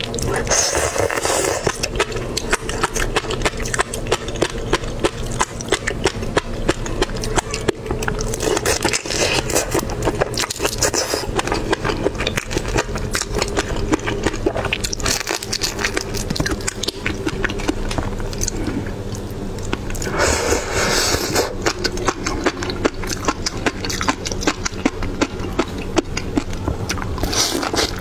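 Raw prawn with a fish-roe topping being handled and eaten: dense crackling and clicking of the prawn shell, with wet mouth and chewing sounds and a few short rustling bursts.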